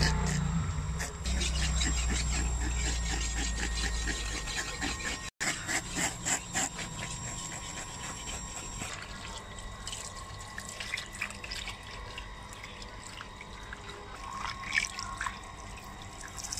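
Water from a hose splashing and running over a python's body on a tiled floor, with irregular wet slaps and drips as a hand rubs the scales. A low steady hum underneath stops about five seconds in.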